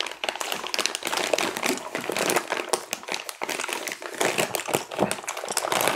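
Plastic candy wrapper of Charms Blow Pops crinkling and crackling as it is handled close to a lapel microphone.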